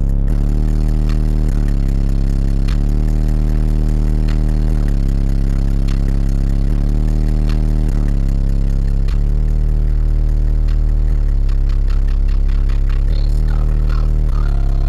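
Bass-heavy music playing loud through a newly installed car audio system with a subwoofer box: a deep, strong bass line under a steady beat.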